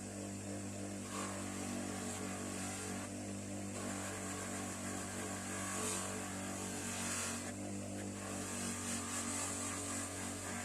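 Bench grinder motor running with a steady hum, while a wire wheel hisses against metal in spells that swell and fade every second or two.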